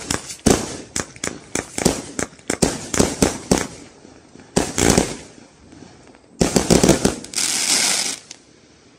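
81-shot 20 mm firework barrage firing its finale: rapid launch thumps and bursting shells, with a short lull about four seconds in. Near the end comes a quick cluster of bursts and then a dense spell of crackling from the crackling chrysanthemum stars, which dies away just before the end.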